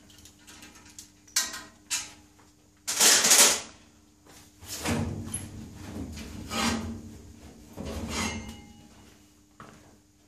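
Metal parts and tools clanking and rattling as a mechanic works by hand on a Holden V8 engine on the dyno stand, with a few sharp clicks early, a brief loud hiss-like rush about three seconds in, and clattering with dull thuds after it. A steady faint hum runs underneath.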